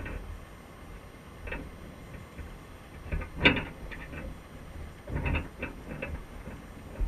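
Irregular clicks and knocks from a wire crab trap on the seabed, heard underwater through a GoPro housing, over a low steady rumble. The loudest knock comes about halfway through, with a small cluster shortly after.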